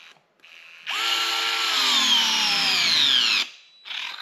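DeWalt 8-volt gyroscopic cordless screwdriver driving a screw into a wooden block without a pilot hole. Its motor whine runs for about two and a half seconds, falls steadily in pitch through the second half, then cuts off sharply. A few short, quieter bursts come before it and once more near the end.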